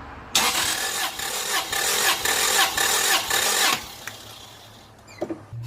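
1996 Toyota Corolla four-cylinder engine cranking on its starter for about three seconds, pulsing evenly, without firing because the fuel injectors are unplugged: cranking for a compression test. It stops a little under four seconds in.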